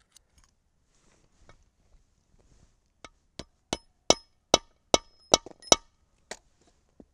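Mallet striking a 7.62x54R case into a Lee Loader's neck-sizing die to iron out a dented case neck. About three seconds in come about eight sharp, clinking strikes, two or three a second, then two lighter taps.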